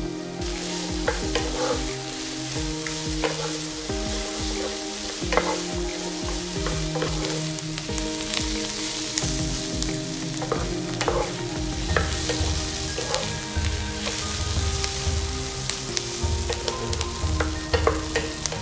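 Sliced onion sizzling in oil in a nonstick frying pan, stir-fried with a wooden spatula that scrapes and taps against the pan roughly once a second. Soft background music with held notes sits underneath.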